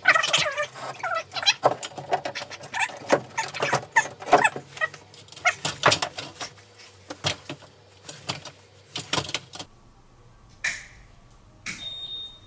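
Slim LED recessed ceiling light being handled and its spring clips pushed up into the drywall hole: a run of irregular clicks, rattles and scrapes for about nine seconds. Then two sharp clicks a second apart near the end, the second followed by a faint steady high tone.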